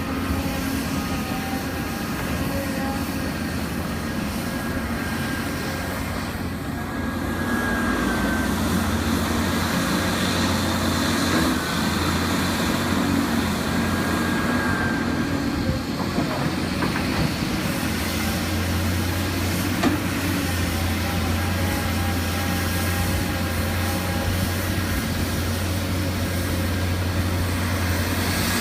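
Caterpillar 325DL excavator working: its diesel engine runs steadily under load while high hydraulic whines come and go as the boom and bucket move. The engine comes up louder about eight seconds in, and there is one sharp knock about two-thirds of the way through.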